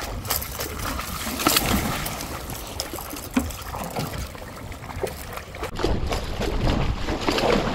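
A gaffed tuna thrashing at the surface beside the boat: repeated splashing of churned water with sharp slaps and knocks.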